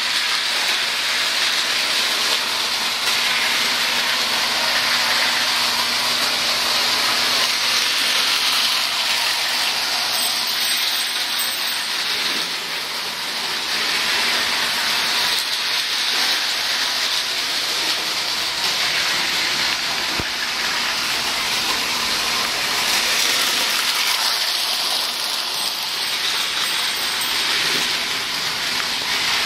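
Tinplate toy trains running on the layout's track: a steady, even rushing whir with no breaks.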